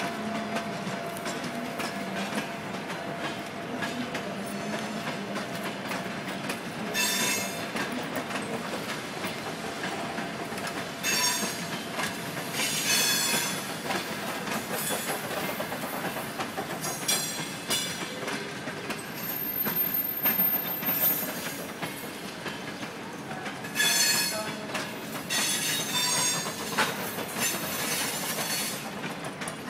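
Passenger coaches of a locomotive-hauled train rolling past on station tracks, their steel wheels squealing against the rails. About seven short, high, ringing squeals come a few seconds apart over a steady rolling rumble.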